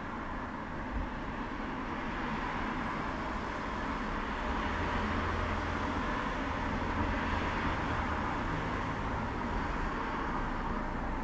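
Steady hum of distant traffic, with a low rumble that swells in about halfway through and fades a few seconds later.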